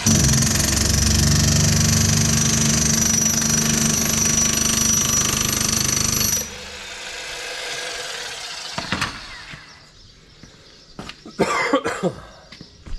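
A power tool runs loudly and steadily with a high whine, then cuts off suddenly about six seconds in. A few sharp knocks follow near the end.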